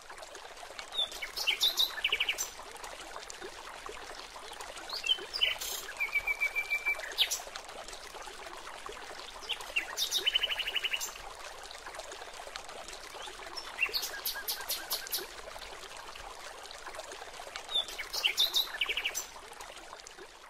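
Small birds chirping in short, rapid trills that come about every four seconds, over the steady trickle of water running down a small tabletop waterfall in a ceramic terrarium basin.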